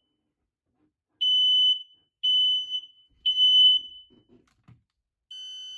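Home smoke alarm sounding during a test: three loud, high-pitched beeps, each about half a second, then a pause, the temporal-three evacuation pattern. A fainter beep with a thinner tone starts near the end.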